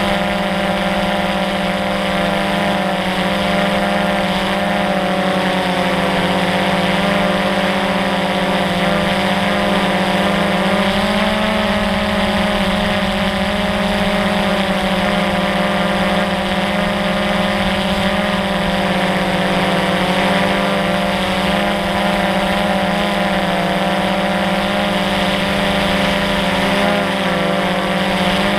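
DJI Phantom quadcopter's motors and propellers buzzing steadily, heard close up from the camera mounted on the drone in flight. The whine's pitch wavers slightly up and down as the motors change speed to steer.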